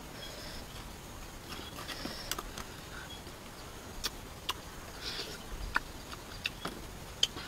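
Grilled freshwater clam shells handled by hand: scattered small sharp clicks and taps as the shells are pried open and the meat is picked out.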